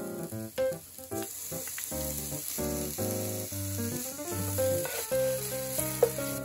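Minced green onion and garlic sizzling in hot oil in a nonstick wok, then stirred with a wooden spatula; the hiss grows stronger after the first second. Background music with clear melodic notes plays throughout.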